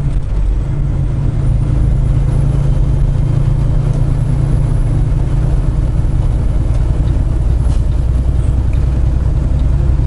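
Semi truck's freshly rebuilt Cummins X15 inline-six diesel running steadily under way, heard from inside the cab as a deep, even drone.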